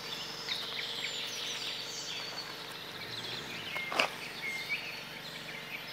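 Outdoor ambience: birds chirping over a steady high hiss, with one sharp click about four seconds in.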